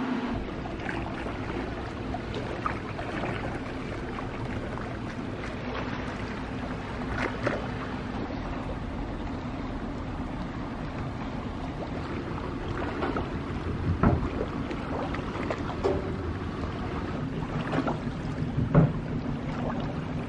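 Harbour ambience: a steady low hum under wind and water noise, with a few scattered knocks and clatters, the sharpest about a third of the way in, midway and near the end.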